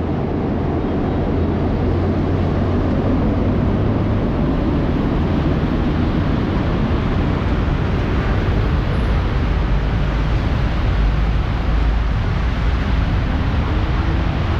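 Steady, dense noise of heavy rain, with a low rumble running underneath.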